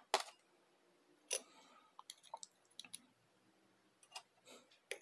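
Scattered light clicks and taps of metal connecting-rod bearing shells being handled and set down on a digital kitchen scale, with one sharper click about a second in and a run of small ticks shortly after.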